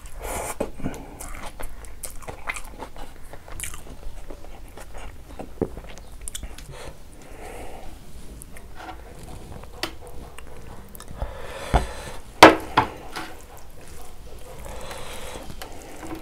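Close-up chewing and biting of a person eating rice and pork by hand: wet mouth noises and smacking, with the fingers working rice on a metal plate. A few sharp clicks about twelve seconds in are the loudest moment.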